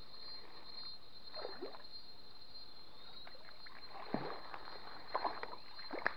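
Small hooked fish splashing at the water's surface as it is reeled in toward the bank, in several short splashes with the loudest about four seconds in.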